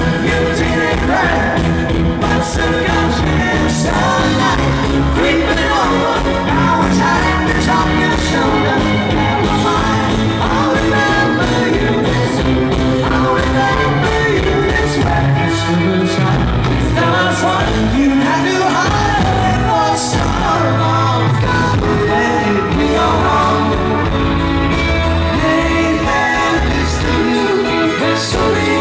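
Live rock band playing loud over a PA: electric violin, bass guitar and drums, with a lead vocal and backing voices.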